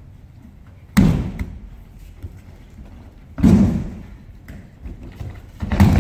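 An aikido partner's body hitting tatami mats in breakfalls as he is thrown: three heavy thumps about two and a half seconds apart, each trailing off briefly in the hall.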